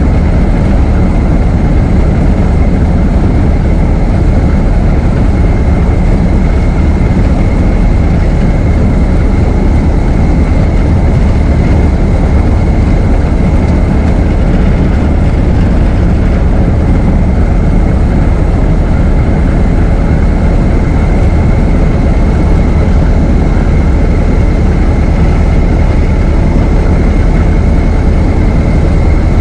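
Ford Model T's four-cylinder side-valve engine running steadily as the car is driven, with a thin steady high-pitched tone through the deep engine sound.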